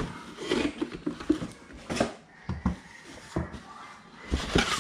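Cardboard helmet box being handled: scattered scrapes and light knocks of its flaps and inner cardboard dividers as the bagged helmet is lifted out, quieter through the middle and busier again near the end.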